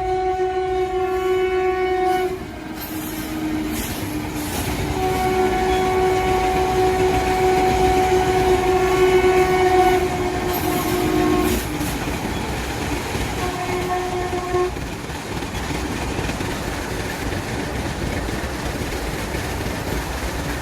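Train horn sounding in long blasts: one ends a couple of seconds in, a longer one lasts about six seconds, and a short one comes near the middle. Under the horn is the steady rumble and clickety-clack of a passing train, which carries on alone after the horn stops.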